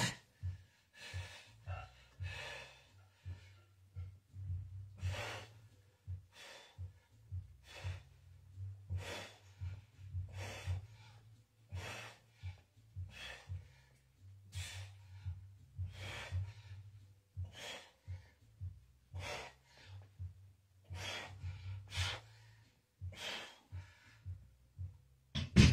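A man breathing hard in short, sharp breaths, roughly one or two a second, as he works through a set of barbell bench presses, over a low steady hum.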